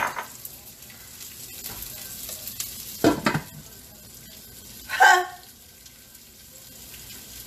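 Dark green cabbage leaves sizzling steadily in hot olive oil in a large pot while being stirred with a spoon. Louder clatters come about three and five seconds in.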